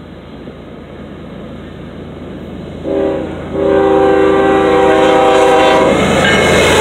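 Norfolk Southern GE Evolution-series diesel locomotive sounding its air horn at a grade crossing: a short blast about three seconds in, then a long blast of about two seconds, the close of the crossing signal. Near the end the horn stops and the locomotive and its cars pass close by with a loud rumble.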